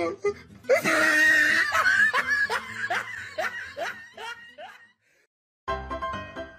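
A person laughing hard: a loud burst, then a run of short falling laughs that fades out after about four seconds. Near the end, background piano music starts.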